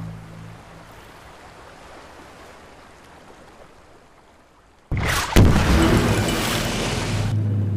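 Faint water ambience, then about five seconds in a sudden blast and a second one about half a second later: naval shells exploding in the sea and throwing up columns of water, with a loud rush of spray and rumble after them.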